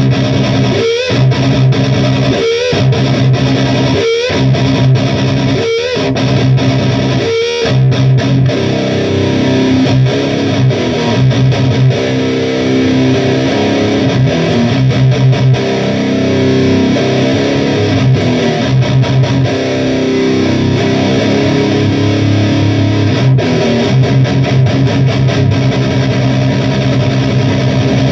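Electric guitar played through a fat, grindy distortion. For the first seven seconds or so, chords are struck about every second and a half with short breaks between them; after that the playing runs on without pause.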